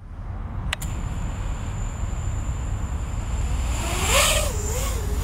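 A 5-inch FPV quadcopter's brushless motors spin DAL Fold F5 5.1-inch folding props at low throttle, just before takeoff, over a steady hum and hiss. There is a click about a second in, and near the end the motor whine wavers up and down in pitch as the throttle is nudged.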